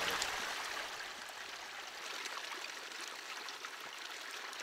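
Water trickling and splashing: a small creek running over rocks while water is poured from a bottle into a collapsible plastic water jug.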